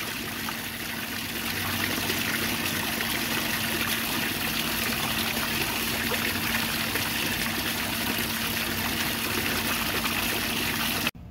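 Water-and-vinegar flush water trickling and splashing steadily from a Yamaha outboard's cooling system, with a steady low hum underneath. Both cut off suddenly near the end.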